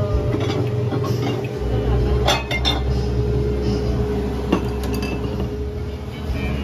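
Dishes and cutlery clinking: a quick cluster of clinks a little over two seconds in and a single clink at about four and a half seconds, over a steady hum.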